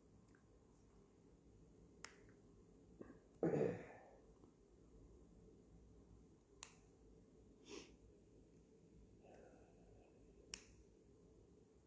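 Faint handling noise from a wired earphone cable and its inline microphone being fiddled with by hand over near silence. There are a few sharp clicks several seconds apart, and about three and a half seconds in a short, louder rustle.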